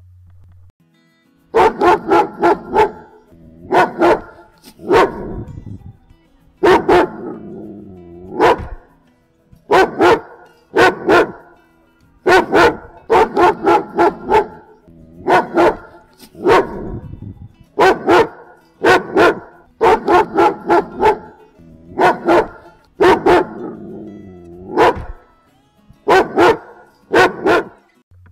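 German Shepherd barking loudly and repeatedly, in quick runs of two to four barks with short pauses between, beginning about a second and a half in.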